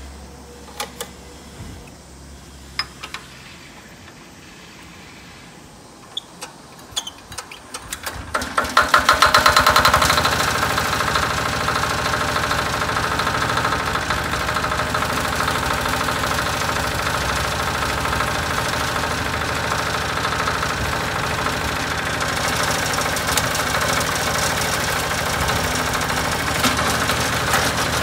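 Yanmar YT550 walk-behind tractor's 5.5 hp diesel engine starting: a few sharp clicks, then about eight seconds in a burst of quick firing pulses as it catches, settling into a steady knocking diesel run that grows a little brighter near the end.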